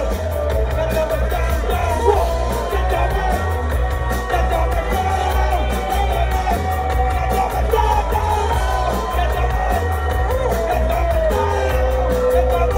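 Live rock band playing loud: electric guitar, drums with a steady cymbal beat and a heavy low end, and a singer's voice wavering above the band.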